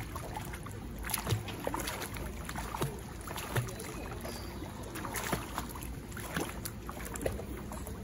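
Pool water lapping and splashing lightly as a young child paddles through it, with irregular small splashes every second or so.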